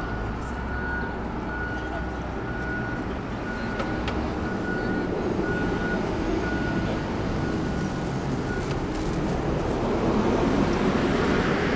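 Steady city street traffic, a continuous low rumble of passing vehicles. A short high beep repeats about once a second through the first few seconds, and the traffic gets louder near the end.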